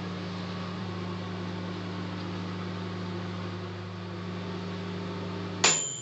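Gorenje microwave oven running with a steady hum. Near the end its timer bell dings once with a ringing tone and the hum stops at the same moment, as the heating cycle finishes.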